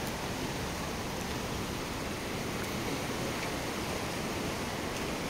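Steady rushing of the fast-flowing Ganges river.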